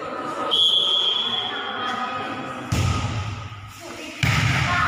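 Volleyball game sounds echoing in a gym hall: players' voices and the thud of the ball, with two sudden loud bursts about two-thirds of the way through. A high steady tone sounds for about a second, half a second in.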